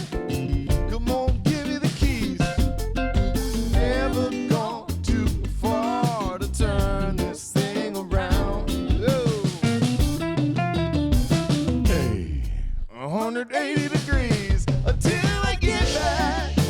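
Song playback with drum kit, guitar and a melodic lead line, with a brief break about twelve seconds in before the band comes back in.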